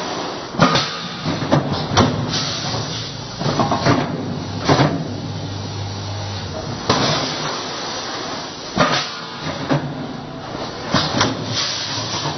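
Electronic weighing and bagging scale filling a batch: seed or grain rushes through the weigh hopper over a steady machine hum, with several sharp clacks and hisses from the machine's air-driven gates and clamps.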